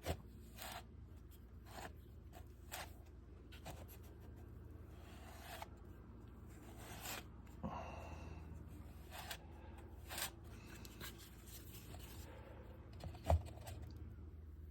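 Plastic spatula spreading wood filler over a model boat hull: faint, scattered scrapes and small clicks over a low steady hum, with one sharper click near the end.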